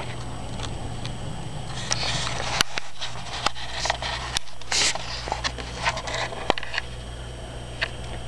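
Camera handling noise: rustling and several sharp clicks from about two seconds in to about seven, over a steady low hum.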